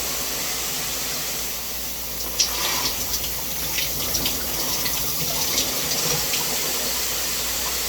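HydroJet high-pressure shower head spraying at full pressure: a steady hiss of running water with scattered sharp spatters, the loudest about two and a half seconds in. Its pressure is "freaking powerful".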